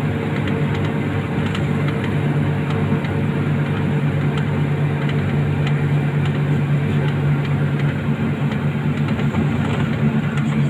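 Mercedes-Benz OF 1623 RF front-engined bus cruising at steady speed, heard inside the cabin: a steady low engine hum over road and tyre noise.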